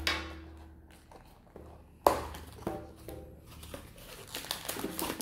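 Crinkling and rustling of plastic wrap and foil booster-pack packaging being handled as a Pokémon card booster bundle is opened, with scattered clicks and taps. It starts sharply about two seconds in.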